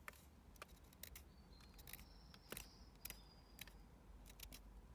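Faint, irregular scratches of paint being scraped off a small enamel metal sign.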